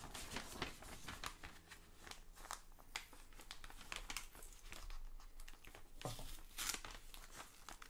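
A folded sheet of paper rustling and crinkling as hands unfold it and smooth it flat, in quick irregular crackles that are loudest about six seconds in.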